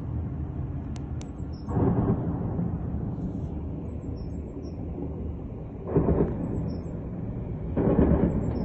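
Three loud bursts of distant weapons fire over a steady low rumble: one about two seconds in, one about six seconds in, and one near the end.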